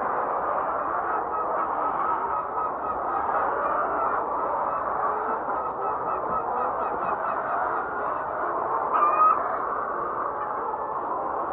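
A large flock of hens in a poultry house clucking and chattering in a steady, dense din, with one louder squawk about nine seconds in.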